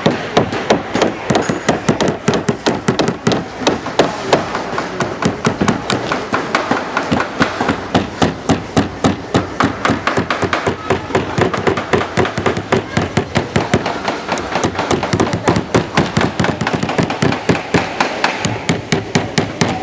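Hammers knocking nails into small wooden kits: quick, uneven strikes, several a second, from several children hammering at once.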